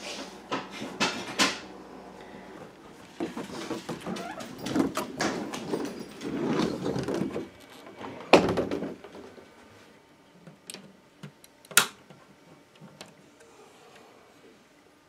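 Handling noise: a paper towel rustling and hands and camera bumping about, with irregular knocks and clicks, the loudest knock about eight seconds in, then only a few scattered clicks, one sharp.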